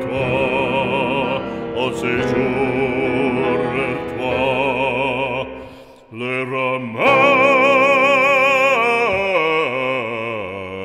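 Background music: operatic singing with strong vibrato in a French devotional song. The voice drops away briefly about six seconds in, then holds a long note and steps down in pitch near the end.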